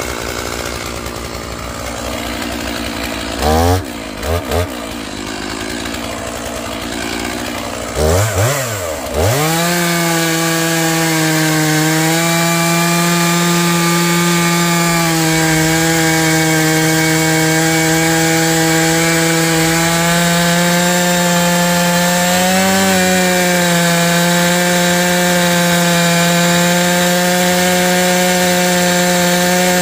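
Stihl MS461 two-stroke chainsaw revved in two short blips, then held at full throttle about nine seconds in and run steadily while cutting into a log.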